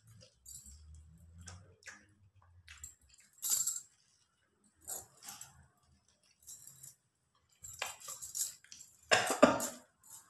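Metal bangles on the wrists jingling and clinking in short bursts as the hands move, mixed with rustling of a paper food wrapper and napkin; the loudest rustle comes near the end.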